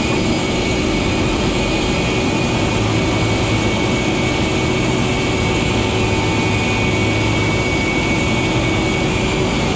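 Steady turbine whine and rumble at a parked Boeing 747-400 waiting for pushback: a constant high tone over a low, even drone.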